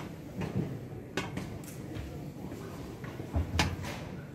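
Background noise of a large exhibition hall, with a few sharp clicks or knocks and a dull thump about three and a half seconds in, the loudest sound.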